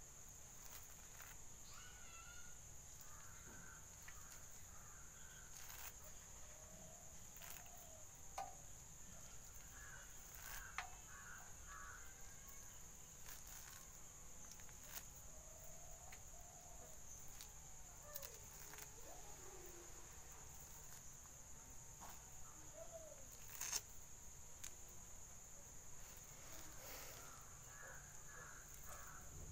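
Faint outdoor ambience: a steady high insect drone with scattered short chicken calls and a few faint clicks.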